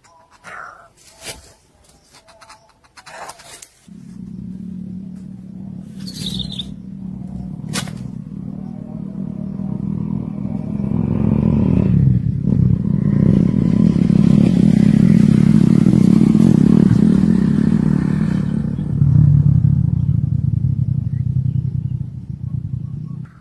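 An engine running, growing steadily louder for more than ten seconds, dropping in pitch near the end and then cutting off, after a few sharp knocks at the start.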